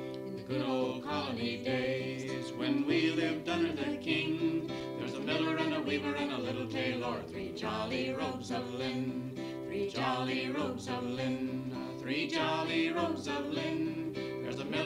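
Background music: a song with singing over a steady instrumental backing.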